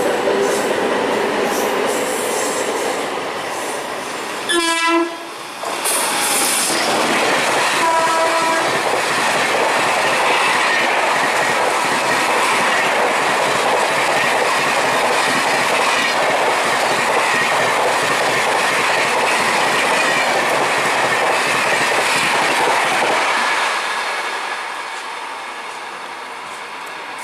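Indian Railways express train passing at speed. Its horn sounds at the start, again about five seconds in, and briefly about eight seconds in. Then comes a long steady rush and clatter of wheels on track as the coaches go by, dropping away about 24 seconds in.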